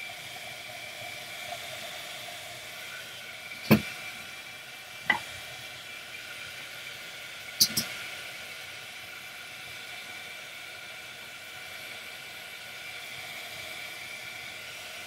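Craft heat gun blowing steadily, a fan hiss with a faint whine, drying the fresh coat on a sardine tin. Three sharp knocks break in between about four and eight seconds in.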